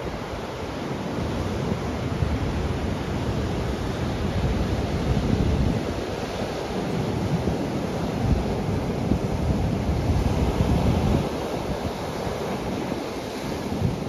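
Ocean surf breaking and washing up a sand and stone beach, a continuous rush that swells and eases every few seconds, with wind buffeting the microphone.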